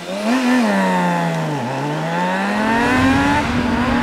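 BMW K1600 GTL's inline six-cylinder engine: its note drops for about a second and a half, then climbs steadily and levels off near the end as the bike pulls away again.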